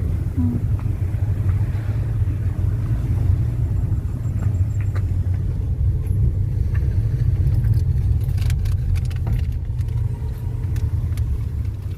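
A car driving, a steady low rumble of engine and road noise.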